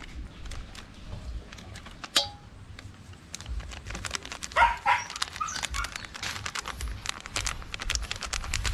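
A dog barks a few times, the loudest a quick pair about halfway through, over small clicks and crinkling as a seasoning packet is cut open with a knife and shaken over crabs in a steel bowl.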